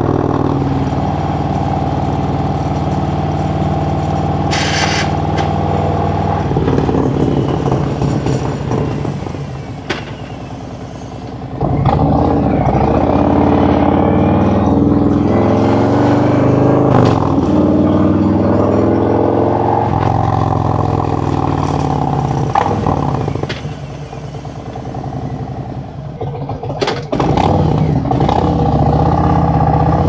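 2017 Harley-Davidson Road Glide Special's Milwaukee-Eight V-twin engine and exhaust running on the move, heard from the rider's seat. The throttle is rolled off twice, about ten seconds in and again near twenty-four seconds, dropping to a quieter burble, and the revs climb again as the bike pulls away.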